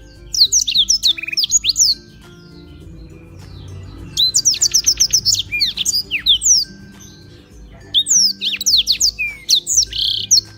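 Black-throated canary (blackthroat) in full song, giving three bursts of rapid high whistled sweeps and trills with short pauses between them.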